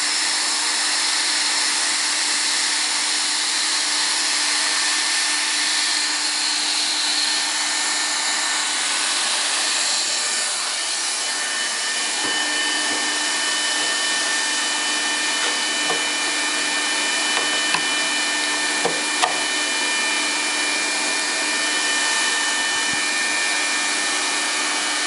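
Bosch hot-air plastic welder with a flat-strip nozzle blowing steadily: a constant hiss of hot air with a steady hum, as a plastic strip is melted into the crack. A few light clicks come in the second half.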